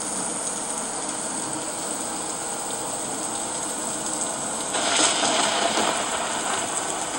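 Detrola record player playing a clear vinyl record through its built-in speakers: a steady hiss of the stylus in the groove, louder and fuller about five seconds in.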